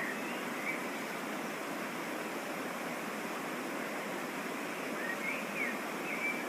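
Steady rushing of a waterfall and mountain stream, with a few short high chirps at the very start and again near the end.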